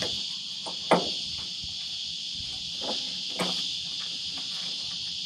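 Steady high-pitched drone of insects, with a few sharp clicks, the loudest about a second in and another near three and a half seconds.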